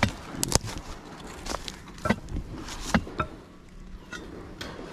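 Irregular sharp knocks of a digging tool striking stones and hard soil as a post hole is dug in rocky ground.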